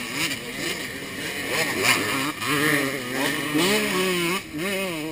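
Dirt bike engines revving as motorcycles ride past, the pitch rising and falling again and again with throttle and gear changes. In the second half the engine note holds level for a second or so at a time.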